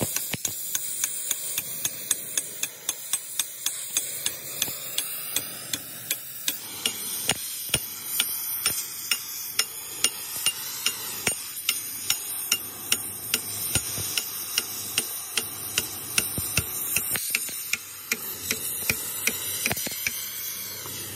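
Hammer striking metal in a steady rhythm, about two blows a second, over a continuous high hiss.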